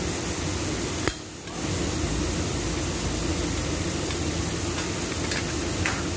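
Steady mechanical hum of workshop noise, with one sharp knock about a second in and a few light clicks near the end.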